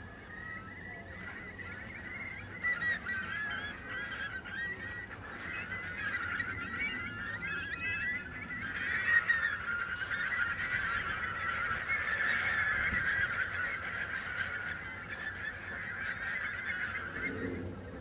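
A large flock of birds calling: many short, overlapping calls in a dense chorus that swells to its loudest about halfway through and eases off near the end.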